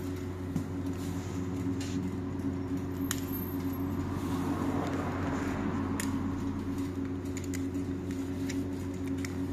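Steady hum of a Volvo 7900 Hybrid bus heard inside the cabin, several low tones held level, with a swell of rushing noise in the middle. Two sharp clicks, about 3 and 6 seconds in, come from handling the wheelchair-space restraint belt and its push-button unit.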